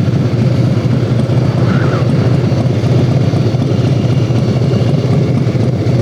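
Harley-Davidson Heritage Softail's V-twin engine running steadily under way, with wind and road noise.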